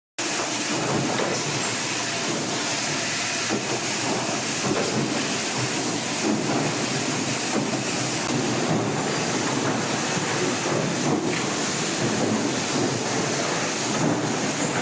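Steady machinery noise of a PC case factory's production floor, with occasional faint knocks.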